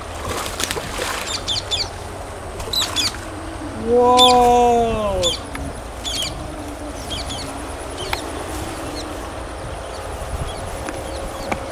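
Small birds chirping in short, scattered calls, with one loud drawn-out call about four seconds in that lasts over a second and drops in pitch at its end.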